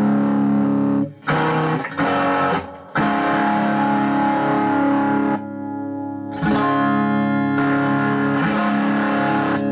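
Electric guitar played through a homemade RAT-style distortion pedal into an amp: distorted chords strummed and left to ring. The chords are cut short briefly about a second in and again near three seconds, and there is a quieter stretch past the middle before a new chord.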